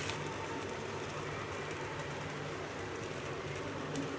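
Potato slices and beaten egg sizzling softly in a frying pan over a low flame: a steady quiet crackle, with a low steady hum underneath.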